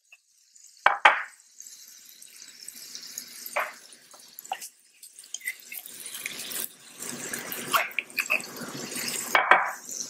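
Soy-lime sauce sizzling in a hot cast iron skillet as honey is spooned into it from a glass jar. Sharp knocks of the spoon against the jar come about a second in, with a few more scattered through.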